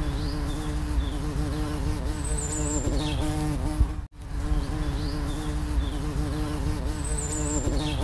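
A dense cluster of honeybees on an exposed comb buzzing in a steady, many-voiced drone. The sound cuts out for an instant about four seconds in, then resumes.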